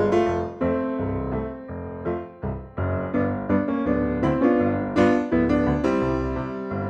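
Background music: a piano playing a light melody with chords, notes struck several times a second and fading after each.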